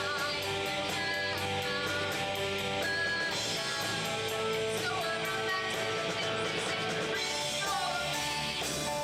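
Music: a band playing a song, with guitar.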